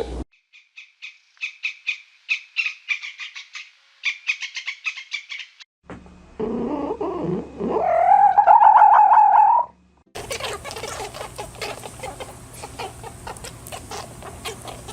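Animal calls in three clips cut one after another. First, rapid high bird chirps for about five seconds. Then one long, loud call that rises in pitch and holds. Then a dense chatter of many calls at once.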